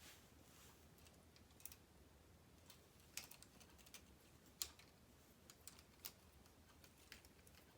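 Faint, scattered clicks of small plastic K'Nex pieces being handled and snapped onto rods, several irregularly spaced taps over a near-silent background.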